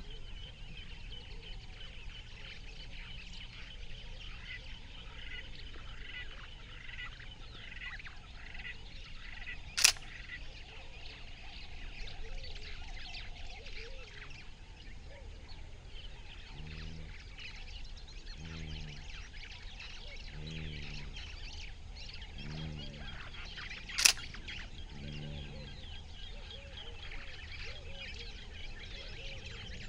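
Outdoor ambience with animal calls: a run of short high chirps, then five low honking calls about two seconds apart. Two sharp clicks, one about ten seconds in and one later on.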